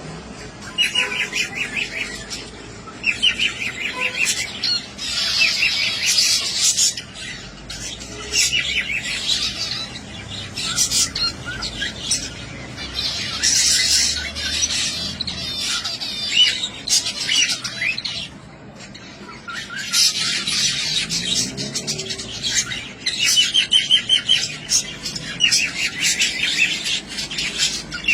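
A group of zebra finches calling and singing: short chattering phrases of quick repeated notes, coming again every few seconds, with a brief lull about two thirds of the way through.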